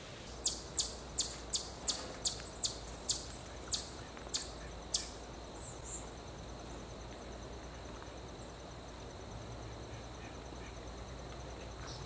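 A bird gives a run of about eleven sharp, high chirps, coming a little slower towards the end, then stops about five seconds in. Afterwards a faint, steady, high insect trill carries on.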